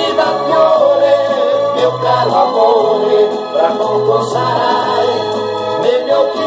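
Music: the backing track of a slow pop ballad playing between sung lines, with low bass notes and sustained chords.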